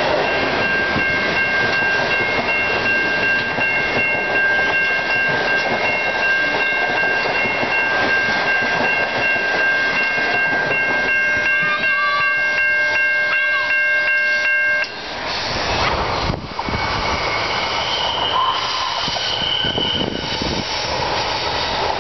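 Stainless-steel passenger carriages rolling past close by, the wheels clattering over the rail joints under a steady high-pitched ringing tone. The sound cuts off suddenly about fifteen seconds in, giving way to a rougher outdoor rumble.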